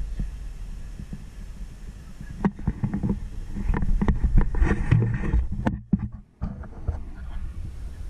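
4x4 vehicle's engine running at low speed on a rough grass track, with a steady low rumble. Knocks and rattles from the vehicle's body start about two and a half seconds in. The sound nearly cuts out for about half a second around six seconds in, then the rumble and rattles resume.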